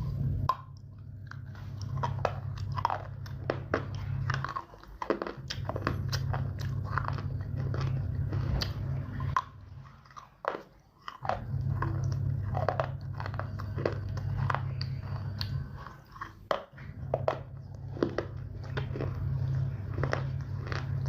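Close-miked crunching bites and chewing of dry, brittle edible clay: rapid sharp crackles over a low rumble, in three or four runs with brief pauses between them.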